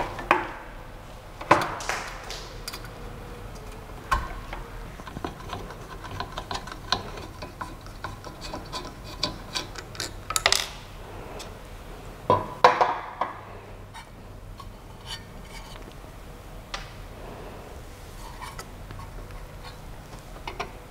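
Scattered small clicks, taps and knocks of hands working at the tool head of a Creality CP-01 3-in-1 3D printer/engraver. There are a few louder knocks about a second and a half in, about ten seconds in, and again a couple of seconds later, over a low steady hum.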